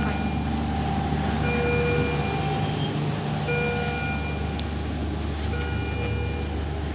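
Medical equipment alarm beeping in an ICU: a half-second electronic tone repeats about every two seconds over a steady low machine hum.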